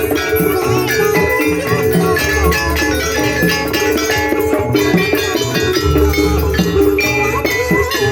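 Live Banyuwangi jaranan music: a gamelan-style ensemble with drums beating a steady rhythm under ringing pitched metal percussion and held melodic tones.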